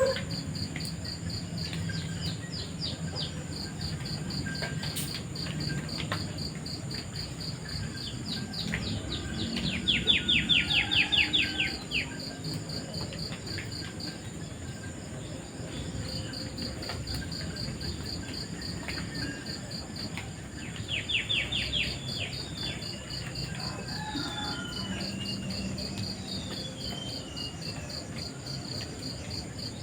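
Crickets chirping in a steady, fast, high-pitched pulse, with songbirds calling over them: a loud rapid trill about a third of the way in and again past two-thirds, followed by a few descending whistled notes.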